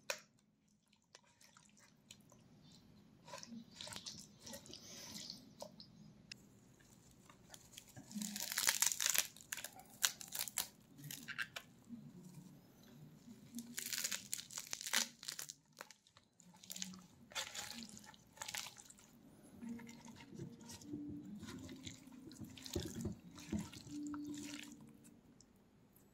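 Fresh coriander and green chillies being handled and dropped onto marinated chicken in a banana-leaf-lined clay pot: crisp rustling and crunching of leaves and stems, in bursts of a second or two.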